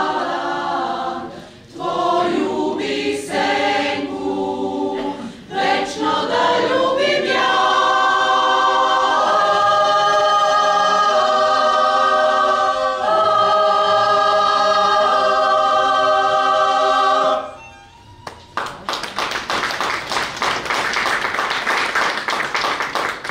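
Mixed choir singing a cappella, building to a long held chord that cuts off about three-quarters of the way through. After a brief pause the audience applauds.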